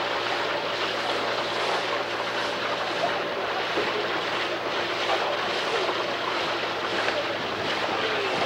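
Wind buffeting the microphone and water rushing past a moving motor launch, with the launch engine's steady hum underneath.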